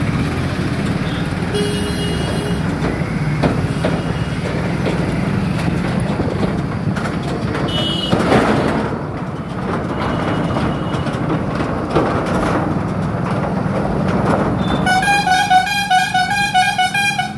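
Road traffic in a jam: a steady low engine rumble, with short horn toots about 2 and 8 seconds in. Near the end comes a rapid string of horn beeps lasting about two seconds.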